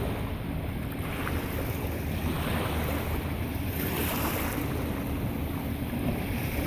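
Wind on the microphone and small waves lapping, with the faint drone of jet skis running across the water.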